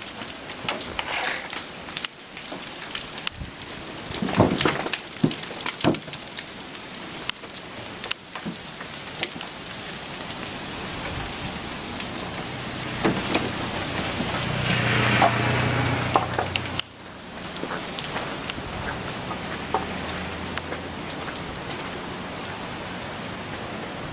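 Meltwater and snow dripping from snow-laden trees: an irregular patter of drops and small ticks over a steady hiss. A low steady hum swells in the middle and cuts off abruptly.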